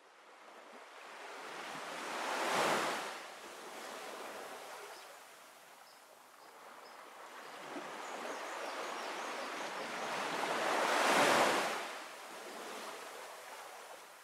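Ocean surf: waves swelling and falling back, cresting twice, about two and a half seconds in and again about eleven seconds in.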